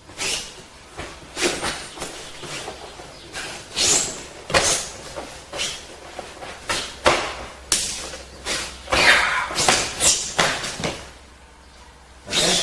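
Partners trading strikes and blocks in a two-man karate kata: an irregular run of about fifteen sharp slaps and thuds of arms and hands meeting, with a short pause near the end.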